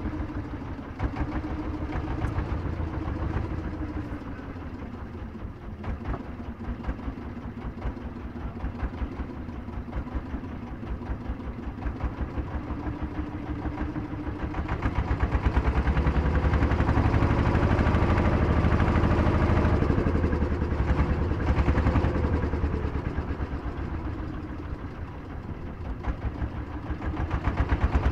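An engine running close by with rapid, even firing pulses, picking up speed and getting louder about halfway through, easing off and then speeding up again near the end.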